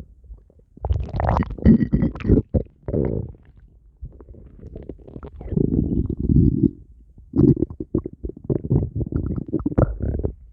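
A person's stomach growling: low gurgling rumbles in three bouts, the last one the longest.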